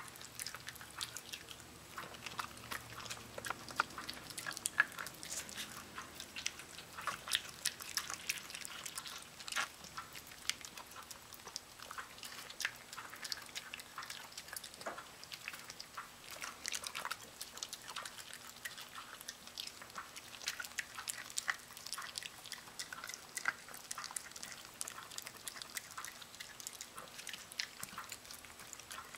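Miniature pinscher chewing and gnawing a piece of raw chicken: a continuous run of small, irregular clicks and crunches from its jaws working the meat.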